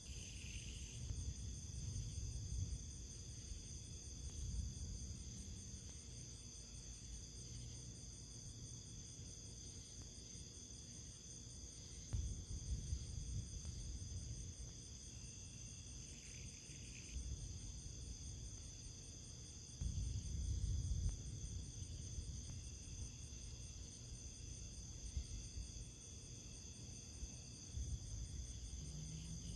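Steady, high-pitched insect chorus with a fine rapid pulse in its highest band, over a low rumble that swells now and then, most strongly about twelve and twenty seconds in.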